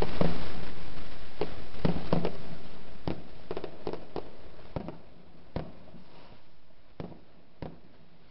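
Fireworks going off: a dense crackle of bangs that fades steadily, thinning to scattered single sharp reports by the end.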